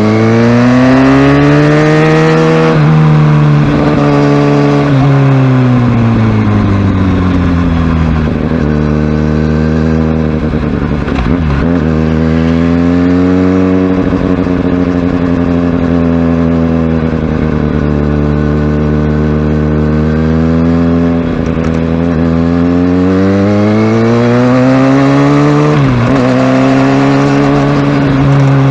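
Kawasaki Ninja ZX-6R inline-four engine under way, its pitch climbing with the revs, dropping back at throttle lifts or gear changes, and holding steady for a long stretch in the middle before climbing again with a sharp drop near the end.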